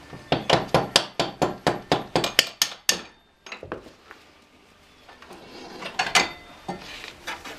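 A fast run of hammer strikes, about six a second for nearly three seconds, tapping the front axle out of a 2009 Yamaha R1's fork. Then a few light metal clicks and a short clatter about six seconds in as the axle is worked free by hand.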